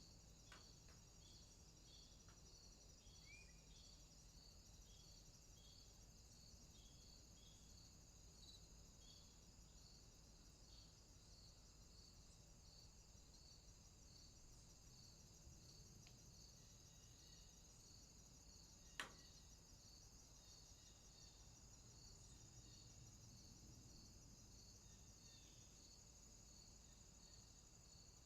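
Faint outdoor afternoon ambience of insects chirring: a steady high drone with a pulsing chirp repeating about one and a half times a second, a few brief high chirps early on, and one sharp click about two-thirds of the way through.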